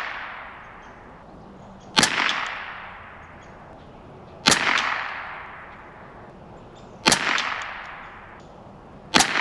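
Ruger 10/22 semi-automatic .22 LR rifle fired four times, slow aimed shots about two and a half seconds apart. Each crack trails off over about a second.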